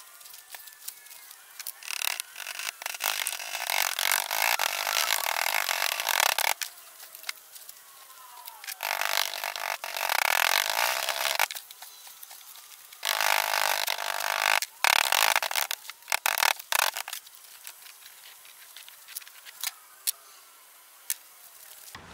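Foundry molding sand being tipped and worked by hand into a wooden flask: three spells of gritty rushing and scraping, each a few seconds long, that start and stop abruptly, with scattered clicks and quieter gaps between.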